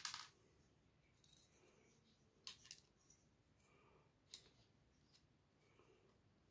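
Near silence broken by a few light clicks and taps of plastic gear wheels and their metal axle pins being handled: a sharper click right at the start, a pair about two and a half seconds in, and another a little after four seconds.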